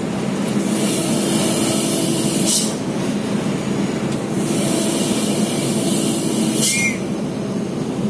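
Hino truck's diesel engine running under way, heard from inside the cab. Twice, a high hiss builds for about two seconds and ends in a sharp click.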